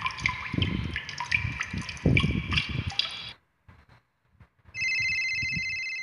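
Water dripping sound effect: drops plinking irregularly, several a second, each with a short rising pitch, stopping about three seconds in. After a short pause, an electronic telephone ring starts near the end, a steady, fast-trilling high tone.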